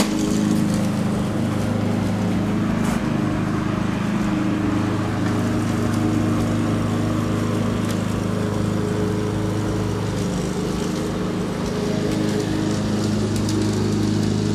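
1973 Ariens snowblower's 7 HP Tecumseh single-cylinder four-stroke engine running steadily.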